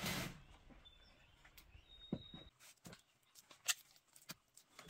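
Wet clay being handled: a few scattered soft thumps and clicks as lumps of mud are scooped from a basin and dropped into a wooden hearth frame, the sharpest a little before four seconds in.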